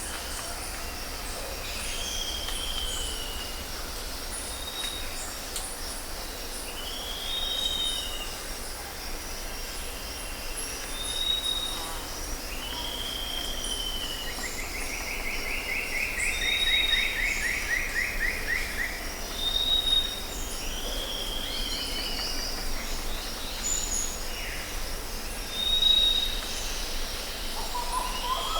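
Tropical forest ambience: several birds calling over a steady, high insect drone. A short arched whistle repeats every few seconds alongside brief high pips, and about fifteen seconds in a longer rapid trill slides down in pitch.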